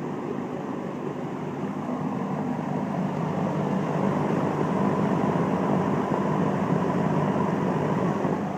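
1971 Lakewood S-23 20-inch metal-blade box fan with its McMillan motor running steadily on high speed, a powerful, helicopter-like metal-blade sound of rushing air with a low hum, growing a little louder over the first few seconds.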